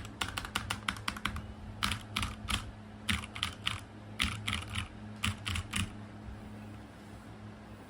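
Typing on a ZIFRIEND T62 mechanical keyboard: quick runs of sharp key clicks that stop about six seconds in, over a faint steady low hum.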